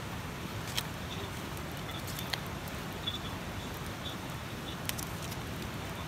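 Campfire crackling: a steady low rumble with a few sharp, isolated pops.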